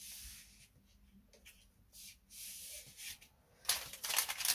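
Self-adhesive sealing tape being handled, its protective backing film peeled away as the tape is pressed on. It comes as short, hissy rustles with pauses between them, then a denser crackling rustle from about three and a half seconds in.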